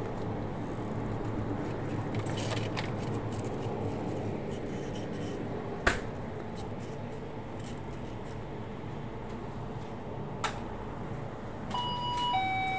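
Steady hum of a convenience store interior with scattered light clicks and two sharper clicks, about six and ten seconds in. Near the end, an electronic door chime sounds two notes, a higher one and then a lower, held one.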